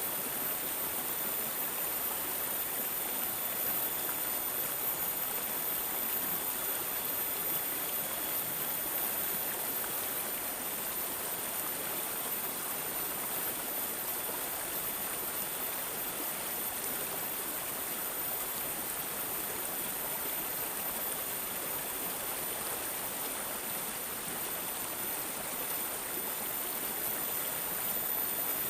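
Water gurgling and babbling steadily, as in a running stream, with an even, unbroken rush and no pauses.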